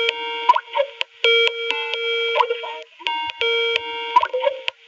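Skype call ringtone: a short electronic chime phrase repeating over and over while the video call waits to be answered.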